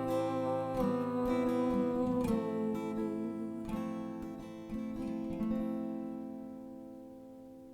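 Acoustic guitar strumming the final chords of a worship song, a handful of strums in the first five seconds or so, then the last chord left to ring out and fade away.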